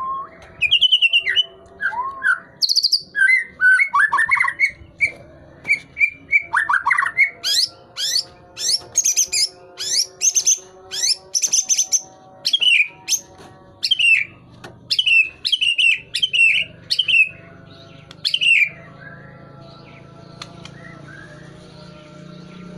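A murai songbird singing loudly in full song: a rapid string of varied whistled phrases with quick rising sweeps and repeated falling notes. The song stops about three-quarters of the way through, leaving a faint low hum.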